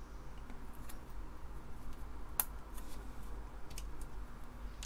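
Faint, scattered clicks and taps of resistors' bent wire leads being handled and pushed into the holes of a circuit board, with one sharper click about two and a half seconds in.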